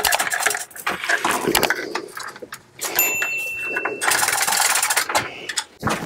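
Manual chain hoist being hauled by its hand chain to lift a Perkins 4-108 marine diesel: steel chain links rattling and clattering through the hoist in quick irregular clicks, with a brief high steady tone about three seconds in.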